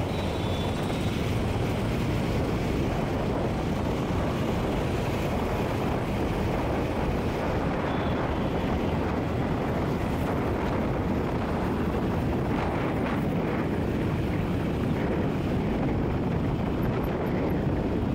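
Steady rush of wind on the microphone from a moving vehicle, with the low, even noise of surrounding road traffic of auto-rickshaws and motorcycles.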